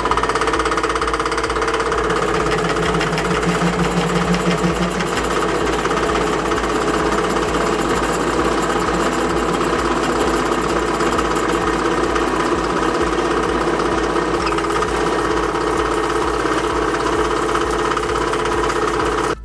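Pillar drill press running with a 16 mm bit, drilling into a metal workpiece clamped in a vice: a loud, steady machine noise.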